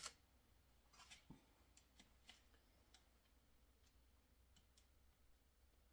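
Near silence: quiet kitchen room tone with scattered faint clicks as frozen cheesecake balls are picked off a parchment-lined baking sheet and pressed into cake crumbs on a paper plate.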